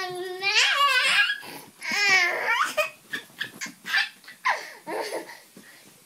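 Toddler laughing and vocalizing in high-pitched bursts: two long ones in the first three seconds, then several shorter ones.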